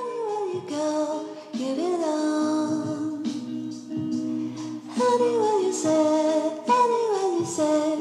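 Background music with a voice singing a melody whose phrases slide down in pitch.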